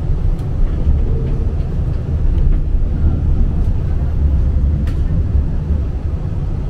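Tram running, heard from inside the car: a loud, steady low rumble from the wheels on the rails, with a couple of faint clicks.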